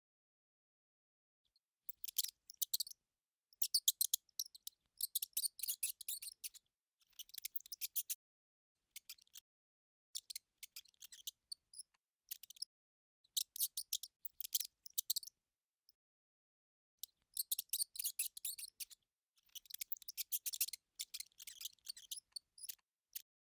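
Mouse sound effect: bursts of rapid, high-pitched chattering, each lasting up to about a second and a half, with dead silence between bursts.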